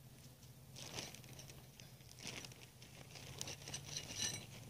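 Faint rustling and light clicks of small metal greenhouse fittings being handled, with a few soft metallic clinks near the end. A faint steady low hum runs underneath.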